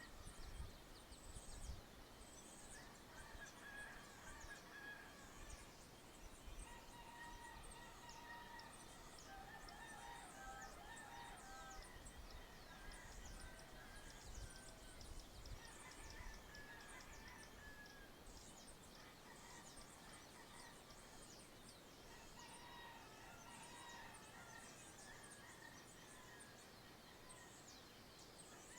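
Faint countryside dawn chorus: many small birds chirping and twittering, with distant roosters crowing every few seconds.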